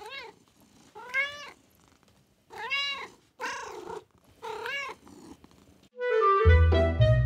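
A cat meowing about five times, roughly once a second, each meow rising and then falling in pitch. About six seconds in, music with a woodwind melody and a steady bass line starts.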